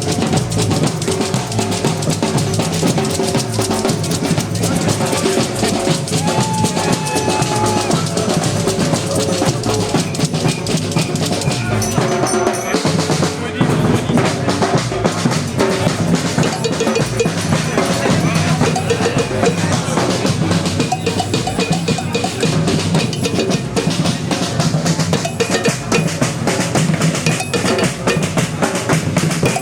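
Batucada drum band playing live: deep bass drums and snare drums in a fast, dense, continuous rhythm. About twelve seconds in the deep drums drop out for a moment, a break in the rhythm, before the full band comes back in.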